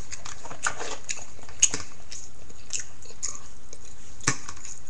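Close-up chewing and mouth sounds of a person eating: scattered wet smacks and clicks, the loudest about a second and a half in and another near the end.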